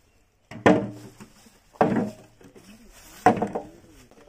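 Lumps of jaggery dropped one at a time into a metal pot of liquid cow-dung slurry: three sharp plops, a little over a second apart.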